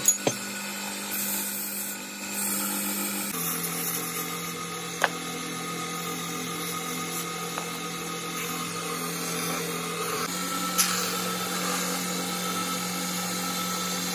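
Belt-driven wood lathe running with a steady hum as a wooden disc spins, while tools are worked against it: first a turning chisel, then a lacquer stick pressed onto the turning wood. A few sharp clicks.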